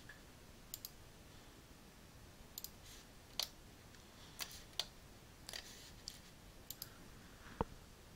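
About a dozen irregular clicks of a computer mouse and keyboard, some in quick pairs, the loudest one a little before the end.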